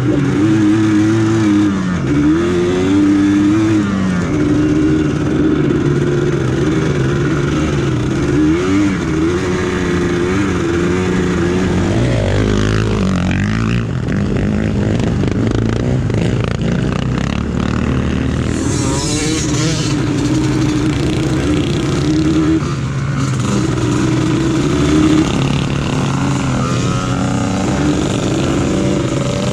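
Quad bike (ATV) engine running under way, its revs rising and falling over and over as the rider works the throttle on a rough dirt trail.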